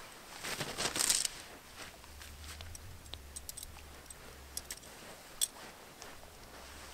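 Nylon tent fabric rustling and crinkling as it is shaken out and spread on the sand, loudest in a burst about a second in, then a few small crinkles and clicks.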